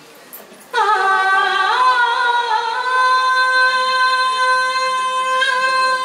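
A woman singing one long, unaccompanied held note into a microphone, starting about a second in; the pitch wavers briefly at first, then settles and holds steady at a high pitch.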